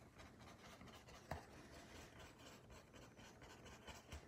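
Faint scratching of a paintbrush laying oil paint across cotton canvas in short strokes, with a single light tap about a second in.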